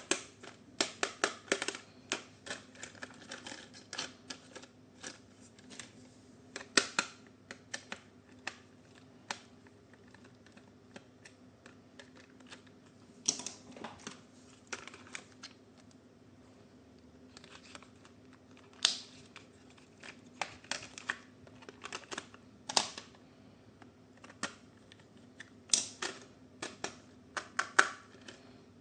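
Irregular sharp clicks and taps of hard plastic toy parts and packaging being handled, coming in clusters with short quiet gaps.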